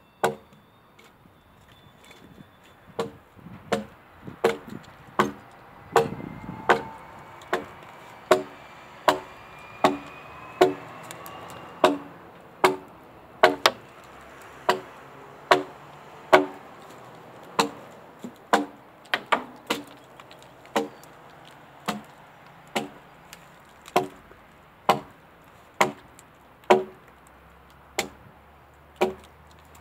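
An axe chopping into a wooden log: a steady run of sharp strikes, a little more than one a second, settling into its rhythm about three seconds in.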